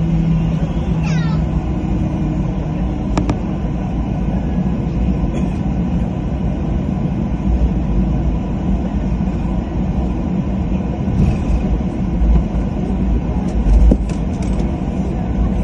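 Steady low rumble in a passenger aircraft's cabin as it taxis onto the runway before take-off, with a single sharp click about three seconds in and a low thump near the end.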